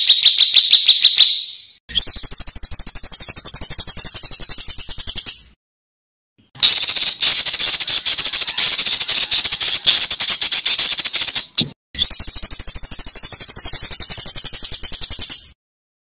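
Songbird giving harsh, rapid-fire rattling calls, the 'tembakan kasar' material played to tutor competition songbirds. The calls come in long bursts of very fast repeated high notes, each a few seconds long, with short breaks between them.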